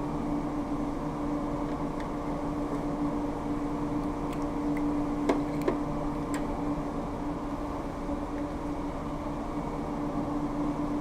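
Steady electrical or ventilation hum with a low, even tone. A few sharp clicks come about halfway through, the two loudest close together.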